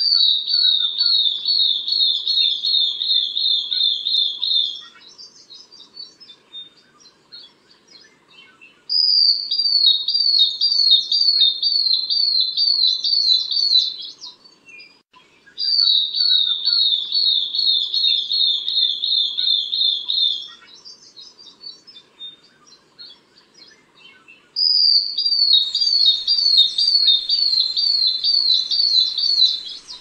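Long-tailed broadbill calling: four runs of high, clear whistled notes, about three notes a second, each run lasting about five seconds and drifting slightly lower in pitch, with pauses of a few seconds between runs. Fainter chirps sound in the gaps.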